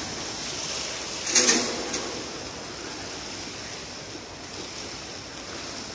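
Pool water splashing and churning from a swimmer's dive entry off a starting block, with a brief louder burst about a second and a half in, then settling to a steady hiss of rippling water.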